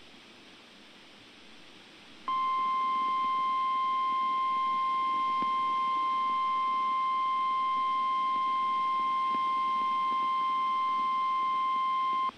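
NOAA Weather Radio warning alarm tone, the single steady 1050 Hz tone of an Emergency Alert System broadcast, held for about ten seconds and cut off sharply. It follows a couple of seconds of faint radio hiss and signals that a warning is about to be read out.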